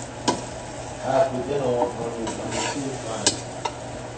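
A metal utensil clinking against cookware, a few sharp strikes, over a faint hiss of food frying.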